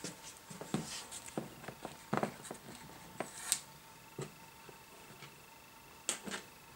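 Scattered light clicks and taps from handling test leads and alligator clips on a bench, with a faint steady high tone underneath and a second, higher one joining about four seconds in.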